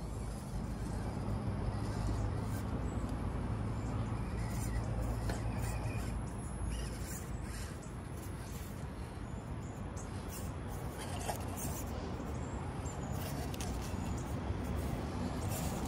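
Small FMS FCX24 1/24-scale RC crawler driving, its electric drivetrain running with a steady low hum and scattered small clicks and crunches.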